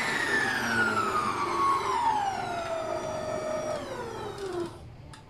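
Electric stand mixer motor whining as it slows from top speed to a stop, its pitch falling steadily for about four and a half seconds before it goes quiet. A brief click follows just before the end.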